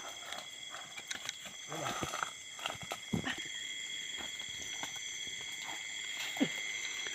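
Night-time chorus of forest insects (crickets) trilling steadily on several high pitches, with a few brief rustles and knocks close by.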